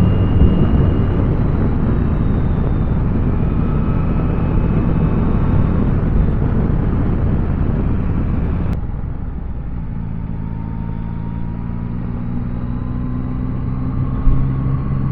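Yamaha Tracer 9's three-cylinder engine running while riding, with wind and road noise rushing over it. About nine seconds in the rushing drops off suddenly and the engine's steady hum stands out more.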